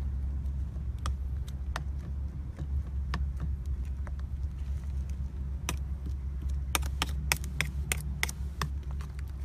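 A spoon clinking against a ceramic bowl while a wet mixture is stirred: scattered sharp clicks at first, then a quick run of them near the end, over a steady low hum.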